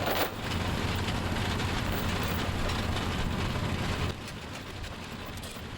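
Ford 8N tractor's four-cylinder gasoline engine running steadily, getting noticeably quieter about four seconds in.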